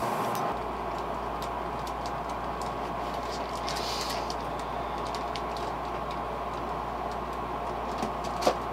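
Steady motor hum with faint scattered clicks and taps from handling a small plastic crankbait, and one sharper click near the end.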